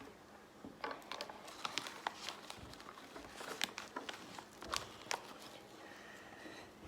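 Light, irregular clicks, taps and scrapes of a scoop against a container as baking soda is scooped and tipped in.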